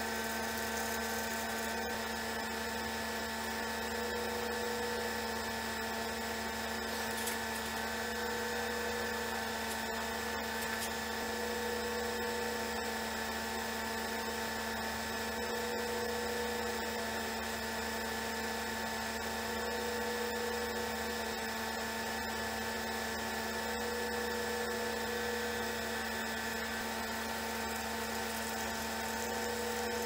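Steady electric motor whine with a low hum beneath it, one part swelling slightly about every four seconds.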